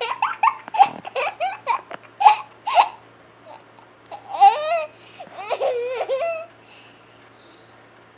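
A little girl laughing in a run of short, high-pitched bursts that die away about two-thirds of the way through.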